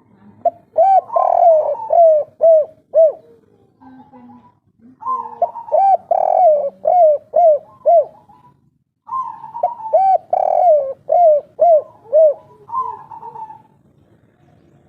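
Spotted dove (derkuku, 'kuk 3' type) cooing: three phrases, each a drawn-out opening coo followed by a run of four or five short, evenly spaced coos, with pauses of about a second between phrases.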